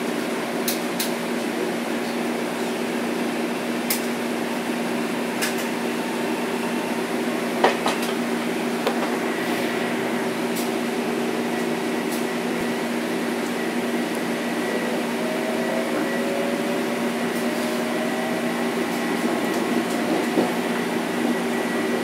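Inside the car of a Metro-North M7 electric multiple unit: steady hum of the car's air conditioning and electrical equipment, with a few sharp clicks. In the second half a faint whine rises slowly in pitch, the Mitsubishi IGBT inverter and AC traction motors as the train gathers speed.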